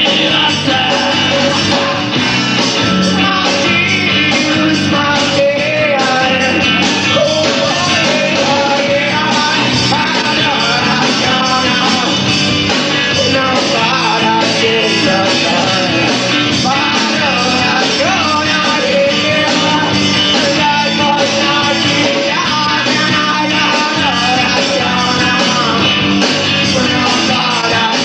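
Rock band playing a song live, with a singer's voice over the band.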